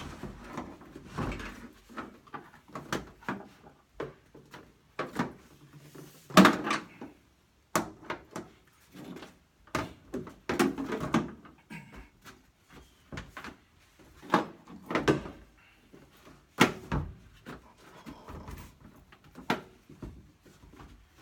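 Ratchet tie-down straps being handled and fastened around a plastic water tank in an empty cargo van: irregular metal clanks, clicks and knocks, the loudest about six seconds in.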